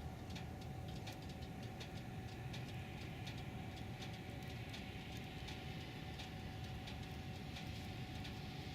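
Steady road and engine rumble inside a car's cabin while driving on snowy roads, with a faint hum and many light, irregular ticks throughout.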